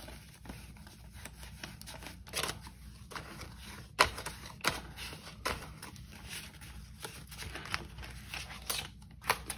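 Paper banknotes being handled and counted by hand: soft rustling and flicking of bills, with a few sharper snaps, the loudest about four seconds in.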